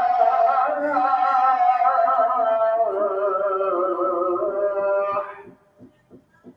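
Islamic call to prayer (azan) chanted by a muezzin: one long, melismatic phrase held for about five seconds, wavering in pitch, then fading out with a short pause before the next phrase.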